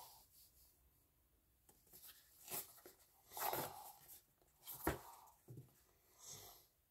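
Faint handling noises from a cardboard product box being turned over in the hands: a few soft rustles and scrapes and one sharp tap or click.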